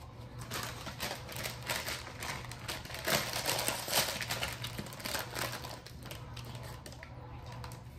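Close-miked eating noise: a dense run of crackling, crunching clicks, thickest in the middle few seconds and thinning out toward the end, over a faint steady low hum.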